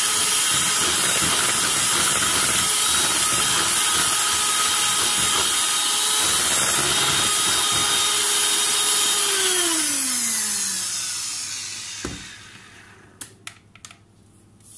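Handheld electric mixer with wire beaters running steadily, whisking a batter of egg yolks, flour, milk and oil. About ten seconds in it is switched off and winds down with a falling whine, followed by a knock and a few light clicks.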